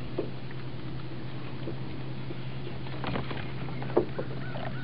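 Hooked blue catfish splashing at the water's surface beside the boat, a few faint splashes over a steady low hum.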